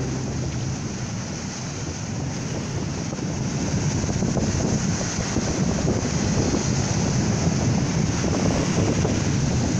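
Sea waves breaking and washing onto the shore, with wind rumbling on the microphone.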